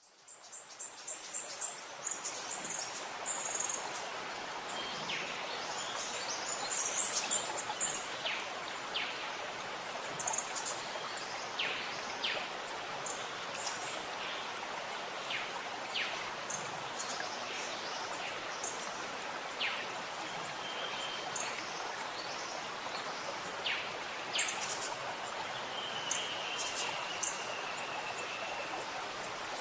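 Steady rush of a waterfall, fading in at the start, with birds chirping and calling high above it and one held whistled note near the end.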